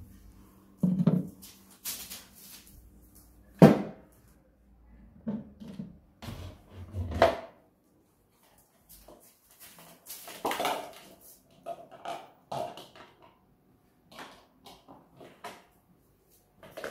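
German Shepherd puppy moving about and playing on a tiled floor: irregular knocks, thuds and scuffs, the sharpest knock about four seconds in.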